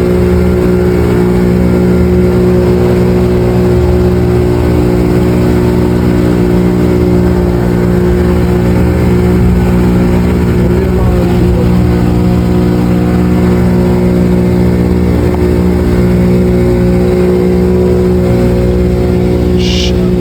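Speedboat's outboard motor running steadily at speed, loud and even in pitch.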